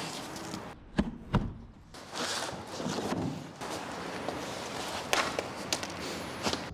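Packaging and parts being handled: rustling with two sharp knocks a little after a second in, then a few lighter clicks near the end.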